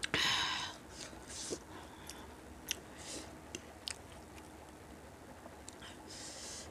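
Close-miked eating sounds: a loud breathy burst right at the start, then wet mouth clicks and chewing, with another short hissy burst near the end as a forkful of spicy instant noodles is lifted.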